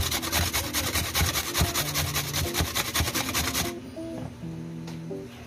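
Carrot being grated on a stainless steel box grater: rapid rasping strokes, several a second, that stop a little over halfway through. Quiet background music plays underneath.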